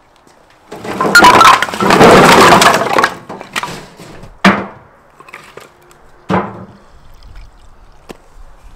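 Split firewood logs tumbling and clattering against each other and a metal wheelbarrow: a dense burst of knocks and cracks lasting about two seconds. Two single sharp knocks follow, a couple of seconds apart.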